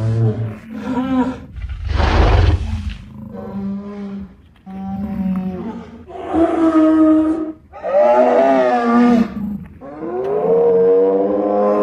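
Stegosaurus sound effects made from blended stegosaurus and woolly rhinoceros recordings: a string of deep, pitched bellows, mostly about a second long and falling in pitch at the end. A harsher, noisier roar comes about two seconds in.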